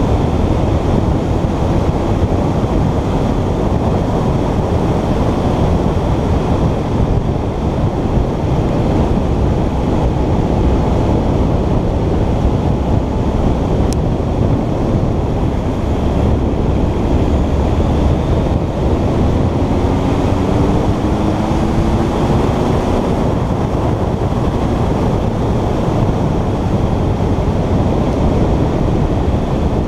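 Heavy wind rush on the camera microphone at riding speed, over the steady running of a Honda CB1300's inline-four engine. About twenty seconds in, the engine note rises faintly as the bike picks up speed.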